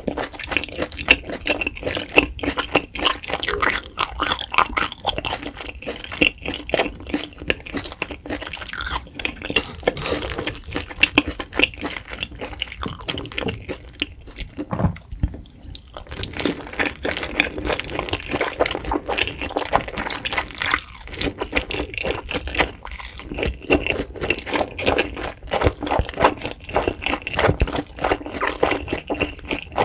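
Close-miked wet, sticky chewing and lip smacking of a spicy fire noodle wrap, a dense run of small squelches and clicks. It goes briefly quieter about halfway through.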